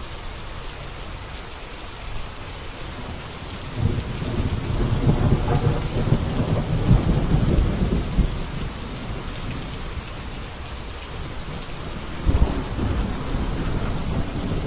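Steady rain hissing, with a long roll of thunder about four seconds in that rumbles for several seconds, and a second, sharper thunderclap near the end.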